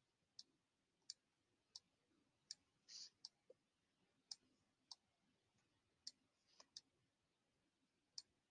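Faint computer mouse clicks, a dozen or so, spaced irregularly over near silence.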